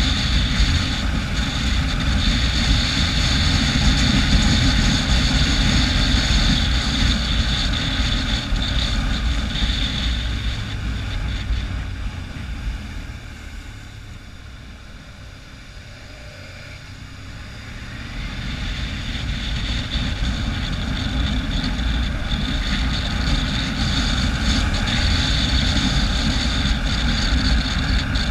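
On-board sound of a motorcycle ride: engine running, with wind rushing over the microphone. It drops noticeably quieter for a few seconds about halfway through, where the road bends tightly, then picks up again.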